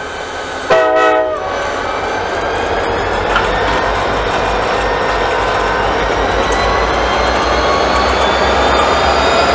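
Alco diesel locomotives: a short horn blast about a second in, then the engines running with a low rumble and a high turbocharger-type whine that slowly rises in pitch as the units pull.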